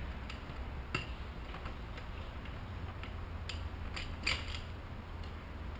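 Scattered light metallic clicks and scrapes from a stroller's front-wheel quick-release hardware as the silver security washers are worked out of the holes in the fork.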